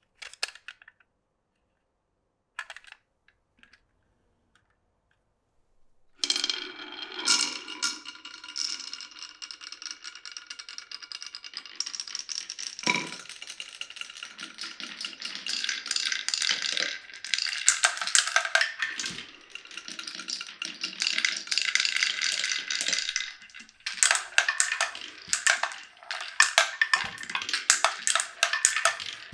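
Glass marbles clicking and rolling on a wooden marble run: a few single clicks at first, then from about six seconds in a continuous rattle of marbles rolling and knocking along the tracks, with a ringing tone running through it.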